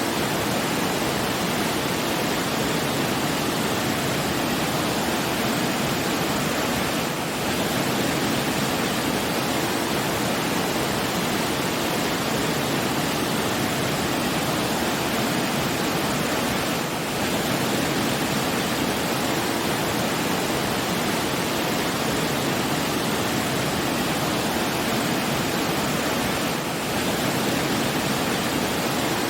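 Steady rushing of running water, an even hiss with no pauses, dipping slightly for a moment about every ten seconds.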